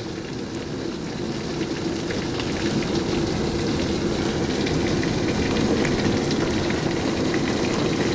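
Heavy thunderstorm rain pouring down in a steady rush, with many small drop ticks through it. It grows louder over the first few seconds, then holds steady.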